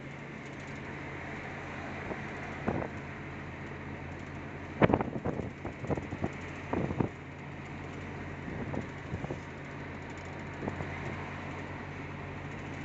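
Steady road and engine hum inside a moving car's cabin, with a short cluster of knocks and rattles about five seconds in.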